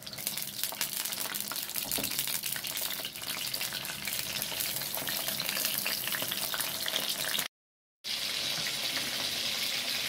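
Small whole fish deep-frying in hot oil in a pan: a steady sizzle thick with quick crackles and spatters. It cuts out abruptly about three-quarters through, and a smoother, steadier hiss follows.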